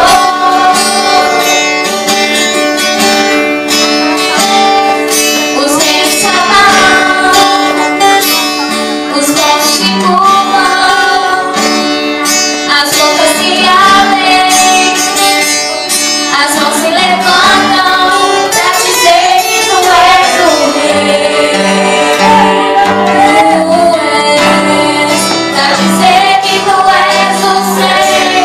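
A woman singing a gospel worship song into a microphone, amplified over loudspeakers, with a live band accompanying her on guitar.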